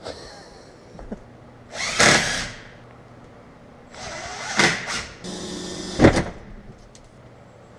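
Power drill driving screws in short bursts: one brief run about two seconds in, then a longer run from about four to six seconds in.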